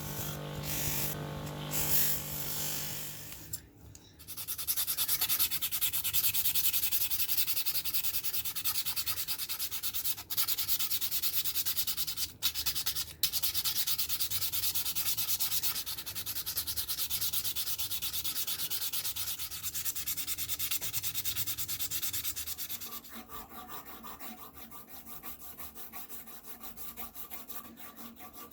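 Steady abrasive sanding or rubbing on metal, starting about four seconds in after a brief hum, and growing quieter about three-quarters of the way through.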